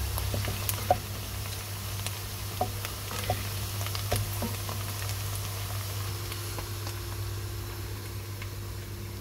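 Chopped red onions sizzling in hot oil, stirred with a wooden spoon, with scattered sharp pops and clicks mostly in the first half. A steady low hum runs underneath.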